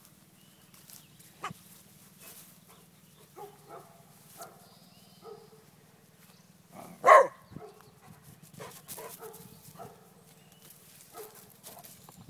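Dogs playing rough, with one loud bark about seven seconds in and a few softer short sounds scattered through.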